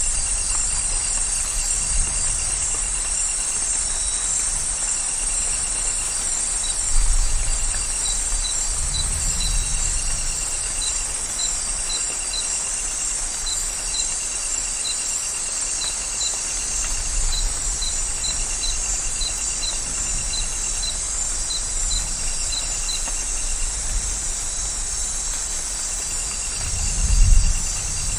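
Amazon rainforest at night: a steady hiss of rain and a chorus of insects, with on-off trills and a repeated short high chirp through the middle. Distant thunder rumbles low a few times, the loudest rumble near the end.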